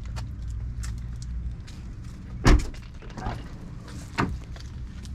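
A car door shut with a loud thump about halfway through, then a lighter knock and a second sharper knock a moment later, over a low steady rumble.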